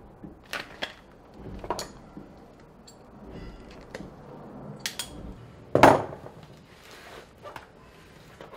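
A shoe sole being hand-stitched with an awl and waxed thread: a series of sharp clicks and knocks of hard tools against leather and wood, the loudest about six seconds in.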